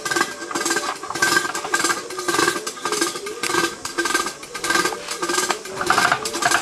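Hand-cranked sugarcane press being turned, its rollers and crank working in a steady rhythm of about two to three strokes a second while the cane is crushed and the juice drips out.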